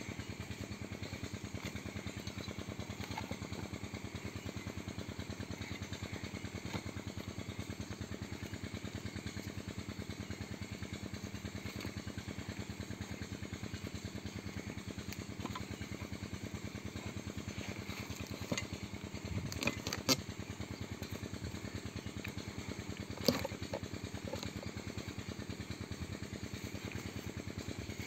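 Small homemade diesel engine running steadily at a fast, even beat while driving a bore-well water pump, with a few sharp knocks about two-thirds of the way through.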